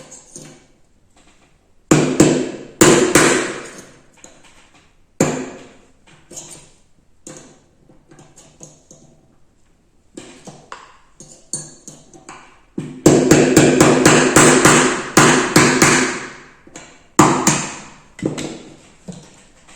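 Hammer blows knocking out a stuck cover on a Flecha Model 14 spring air rifle, each strike ringing. A few separate blows come first, then a fast run of a dozen or so over about three seconds, then two more.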